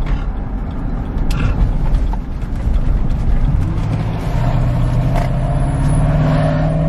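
Jeep heard from inside the cabin: a constant low rumble of engine and road. From about halfway in, a steady engine hum comes in over it and grows stronger.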